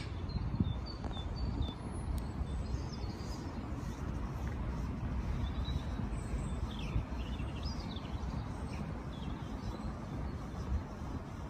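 Outdoor ambience: small birds chirping now and then over a steady low rumble.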